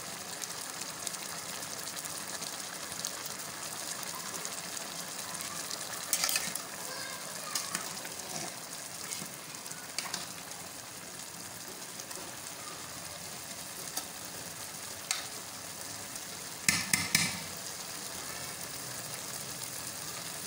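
Pot of rice simmering with a steady bubbling hiss as the last of its cooking water boils off before the rice goes on dum. Now and then a metal spatula knocks and scrapes against the pot, loudest about six and seventeen seconds in.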